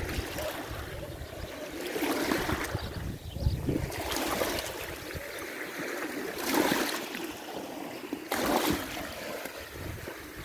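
Small waves washing over a stony shoreline in shallow water, coming in surges every couple of seconds.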